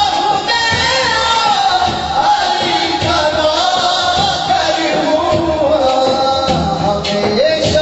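A man singing a naat through a microphone and PA, drawing out long, wavering notes over a steady low beat.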